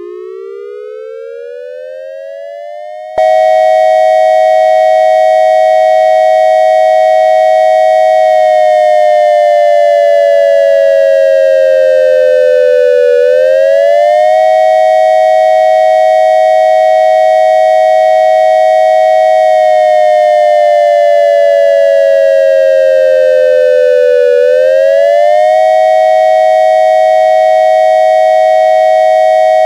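Synthesized dual-tone electronic siren made from triangle waves, imitating an ASC digital siren controller sounding the attack signal. A quiet rising wind-up jumps about three seconds in to a much louder steady two-note wail, which twice sags slowly in pitch and then swoops quickly back up.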